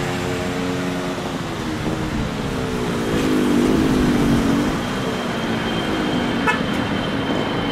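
Airbus A320 jet airliner climbing away after takeoff, its engines at takeoff power. A droning engine tone falls in pitch, rises briefly and falls again, loudest about halfway through.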